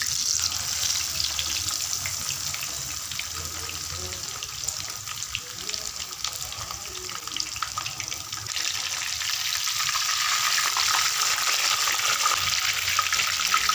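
Whole spice-coated fish deep-frying in hot oil: a dense sizzle full of small crackles. It jumps up as a second fish is lowered into the oil at the start, and grows louder again about eight seconds in.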